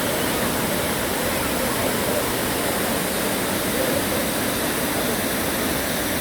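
Steady rushing roar of a large waterfall crashing down, loud and unbroken.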